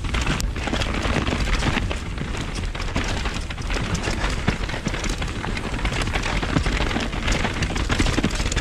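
Mountain bike ridden fast down a rough, rocky trail, heard from a mounted GoPro: constant wind rush on the microphone under a dense, irregular clatter of knocks and rattles from the tyres and frame hitting rocks and roots.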